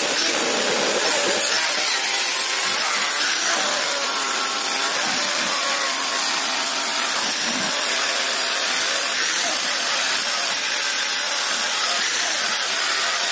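Angle grinder grinding stainless-steel pipe: a steady, loud, hissing grind with a faint high whine over it.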